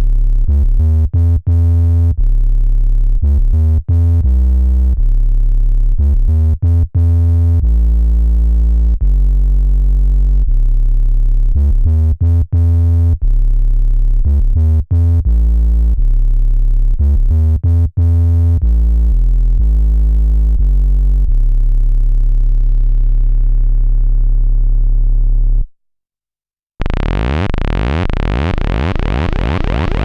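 Sequential Pro 3 analog synthesizer playing a deep bass patch as a line of short, separate notes. The tone grows darker over its last few seconds before it stops. About a second later a new, bright patch begins.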